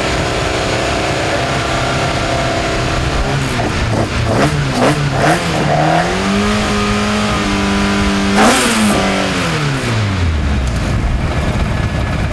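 Autocross Super Car engine running with its bonnet open: it idles, is blipped a few times about four seconds in, then is held at higher revs for a couple of seconds before the revs fall steadily back to a low idle. A brief loud burst of noise comes just before the revs drop.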